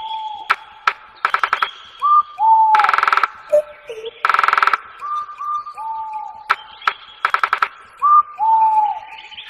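Birds calling: short clear whistled notes that rise and fall, mixed with several loud, harsh rasping calls about half a second long.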